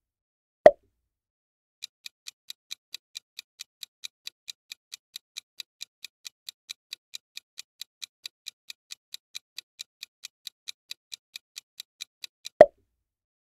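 Countdown timer sound effect: clock ticking, about four ticks a second for some ten seconds, opened and closed by a short sharp sound effect.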